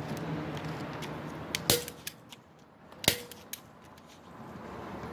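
Phone camera shutter clicking twice as pictures are taken: two sharp clicks about a second and a half apart, each with a short ringing tone, over a low steady city background.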